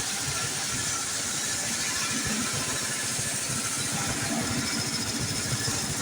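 Steady outdoor din of a busy open-air market, a constant wash of noise with engine sound from passing vehicles.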